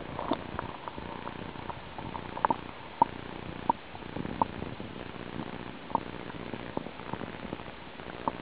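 Muffled underwater sound picked up by a submerged camera: a steady dull rumble with a faint low hum. Sharp irregular clicks and pops come through it, about one a second.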